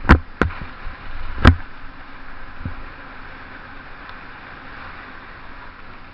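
Three sharp knocks in the first second and a half, the loudest about one and a half seconds in, over a steady rushing hiss.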